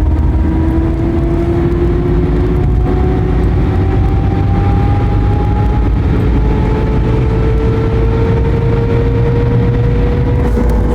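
TDI turbodiesel car accelerating: a steady low rumble with a thin whine that climbs slowly in pitch as the car speeds up. The whine is the abnormal noise under acceleration.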